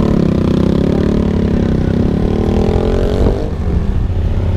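Motorcycle engine running while riding, its note shifting in pitch as the bike changes speed, with a steady rushing hiss over it.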